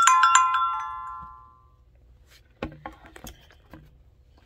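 Small metal pieces jingling: a few quick clinks right at the start that ring and fade over about a second and a half, followed by quieter knocks and rustling of handling.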